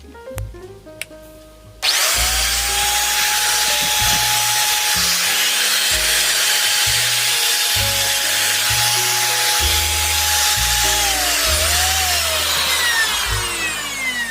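Electric angle grinder switched on about two seconds in. It spins up quickly to a loud steady whine, then near the end is switched off and winds down with a falling whine.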